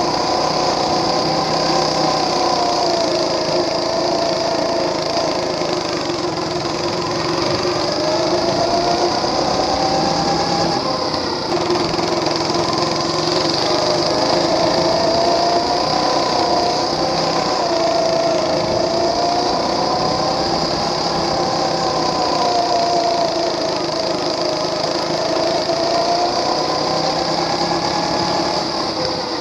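Small Briggs & Stratton engine on a homemade chain-drive wagon running under way, its pitch rising and falling slowly in waves as the throttle is opened and eased round the laps.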